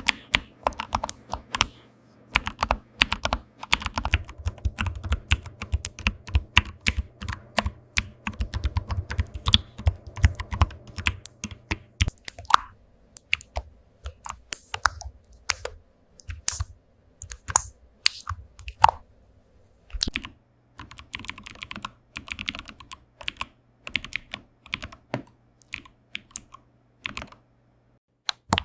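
Computer keyboard typing: quick runs of key clicks, with a short pause just before twenty seconds in. A faint steady low hum runs underneath, dropping out in the middle stretch.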